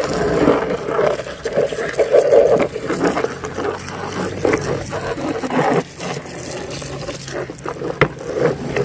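Plastic toy vehicles being scraped and rattled as hands rummage through wet mud, with irregular scrapes and clicks and a sharp knock near the end.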